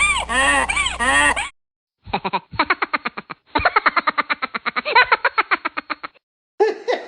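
A string of cartoonish meme sound effect clips, cut one against the next. It opens with about four quick arching, pitched cries in a row. After a short silence come two runs of fast, chattering pitched pulses, about ten a second, which sound like comic quacking.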